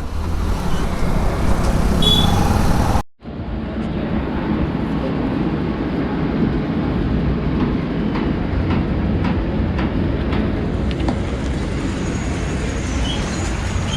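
Steady road rumble from a motorcycle ride in traffic, broken by a sudden cut about three seconds in.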